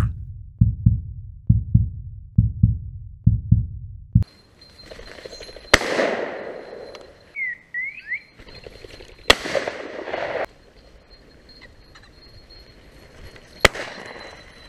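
A heavy bass beat pulsing in pairs for about four seconds, then three shotgun shots a few seconds apart, each echoing briefly across open country.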